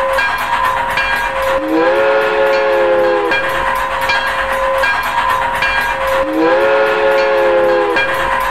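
Steam locomotive running with a steady rhythmic chuff, its chime whistle blown twice, each blast about a second and a half long and sliding up slightly in pitch as it opens.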